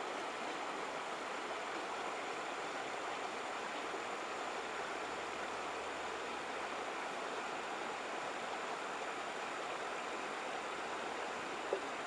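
Shallow river water running over stones in a steady rush, with one short click near the end.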